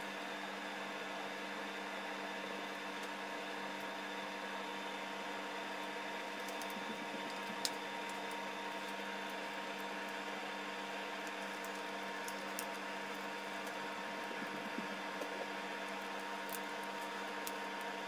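Steady background hum with a few faint, short metallic clicks, the sharpest about halfway through: a small screwdriver and mounting screws being handled on a laptop hard drive.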